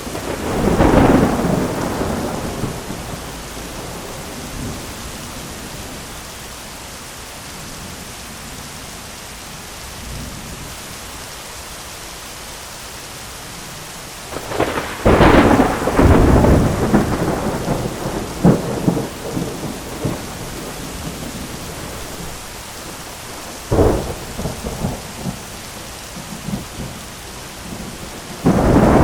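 Steady heavy rain with repeated thunder. A clap rolls in about a second in. A louder, longer crash comes around the middle. A sharp crack about three quarters of the way through is followed by rumbling, and another clap comes near the end.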